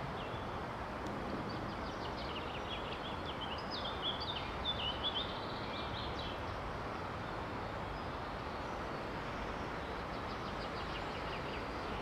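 A small songbird's quick, high chirps and twittering phrases, mostly in the first half and loudest about four to five seconds in, over a steady outdoor background noise.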